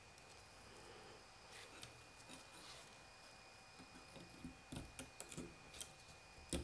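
Faint clicks and light metal ticks from snap-ring pliers and a steel C-clip being worked into the retaining groove of a supercharger pulley bearing housing. Several short clicks come from about four seconds in, after a near-silent start.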